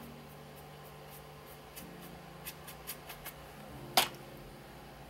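A paintbrush dabbing and stroking watercolour paper, giving a few small, light scratchy ticks. About four seconds in there is a single sharp click, the loudest sound, over a faint steady hum.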